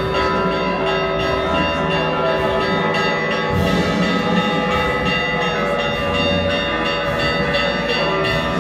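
Greek Orthodox church bells ringing in a continuous, rapid peal, with many overlapping bell tones struck one after another.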